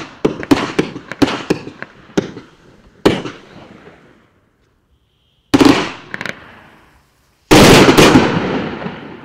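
A 30 mm 24-shot fan cake, a 1.4G consumer firework, firing its shots. A quick string of sharp reports comes at about three a second, then after a pause a single loud one. Near the end a dense, loudest volley of several shots at once goes off and dies away.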